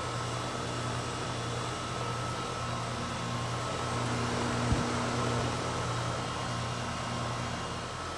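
2008 Goodman heat pump outdoor unit running in heat mode: a steady compressor hum under the even rush of the outdoor fan. A single short low thump comes a little past halfway.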